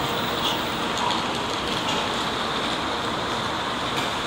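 Steady background noise of a Shinkansen station platform, with a few faint clicks.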